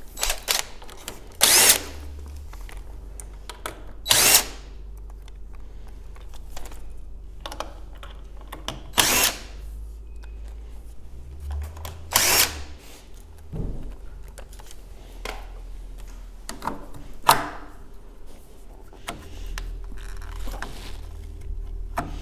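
Cordless drill-driver running in about five short bursts, each under half a second, with small clicks and knocks of handling between them.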